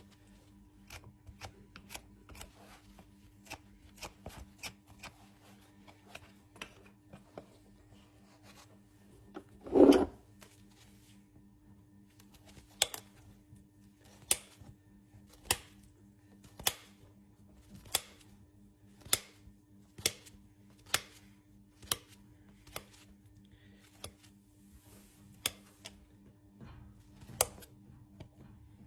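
Hoof nippers snipping through a horse's hoof wall: sharp cuts, small and irregular at first, then louder and evenly spaced about one every second, with one louder, longer knock about ten seconds in.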